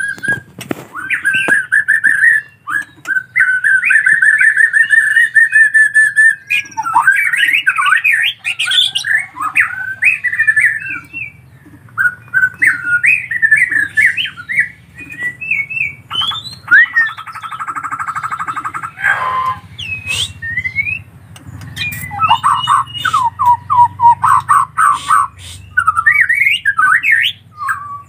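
White-rumped shama singing: a run of loud, varied whistled phrases and quick trills. A harsh buzzing rattle comes about two-thirds of the way through, then the whistling picks up again.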